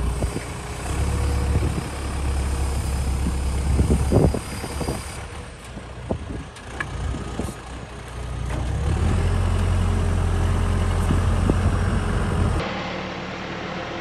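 Gradall telehandler's diesel engine running as the machine drives, its drone loud, easing off in the middle, then loud again. A few sharp knocks sound in the quieter middle stretch. Near the end the sound drops suddenly to a quieter, steady engine hum.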